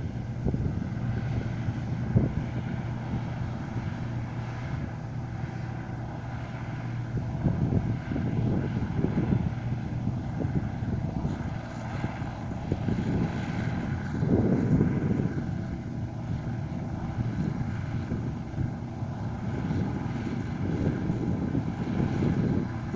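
Farm diesel engine running at a steady pitch, with wind buffeting the microphone in irregular gusts.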